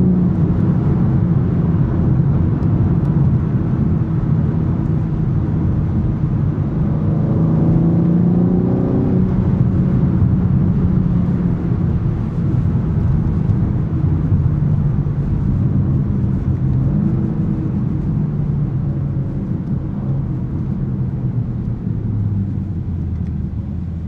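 BMW M3 Competition's S58 twin-turbo straight-six under way, with road noise underneath. The engine note climbs about a third of the way in, holds, then falls lower near the end as the car eases off.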